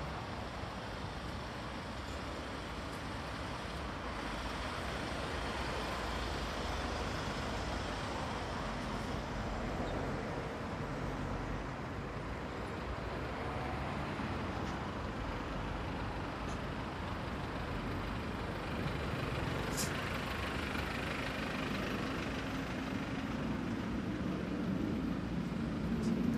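Steady road traffic noise, a low rumble of passing vehicles, getting a little louder a few seconds in.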